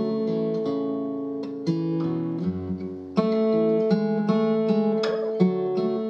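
Country-folk music: an acoustic guitar is strummed and each chord is left to ring, with a new chord struck about every one and a half to two seconds.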